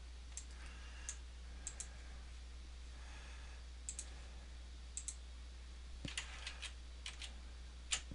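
Scattered computer mouse and keyboard clicks, a few each second and some in quick pairs, over a faint steady low hum.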